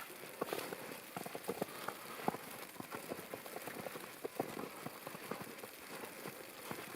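Footsteps sloshing and squelching through wet snow and shallow bog water, a run of small irregular splashes and taps.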